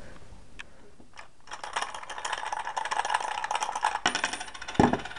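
Lego bricks rattling and clicking for a few seconds as the candy machine's locking lever is worked into place, ending in a sharper knock near the end.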